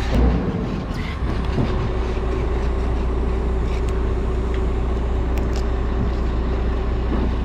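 A motor running steadily: a low drone with a steady hum above it and a few light clicks.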